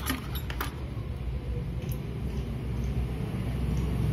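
Small metal parts clinking in a glass jar as a hand rummages through them, a few sharp clicks in the first second. A steady low rumble runs underneath and swells slightly near the end.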